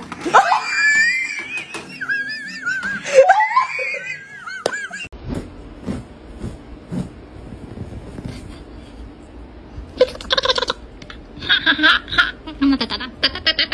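Human laughter: high, wavering vocal sounds in the first few seconds, then short rapid bursts of laughing near the end.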